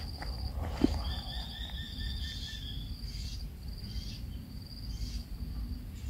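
High, steady insect trill, cricket-like, pulsing evenly with brief breaks. A second, lower steady tone joins about a second in for roughly two seconds, and there is a single sharp click about a second in.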